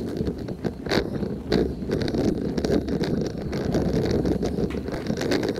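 Toyota Tacoma driving on a dirt road: a steady rumble of tyres and engine with wind buffeting the microphone, and two sharp knocks about one and one and a half seconds in.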